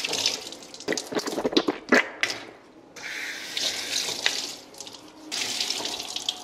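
Water running from a tap into a sink and splashing over hands being washed, breaking off briefly twice.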